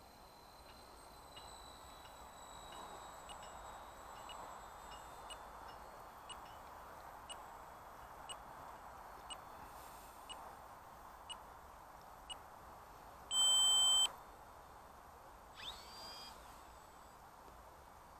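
Electronic beeper giving short high pips about once a second, then one loud beep of under a second, over faint steady background noise.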